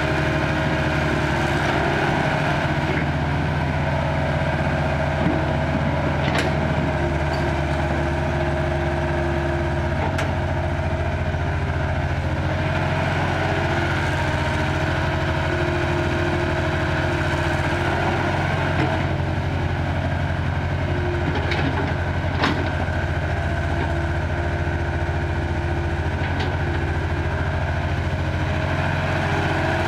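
Caterpillar E70 hydraulic excavator's diesel engine running steadily under load as it digs and loads soil into a dump truck, with a few sharp knocks as the bucket works.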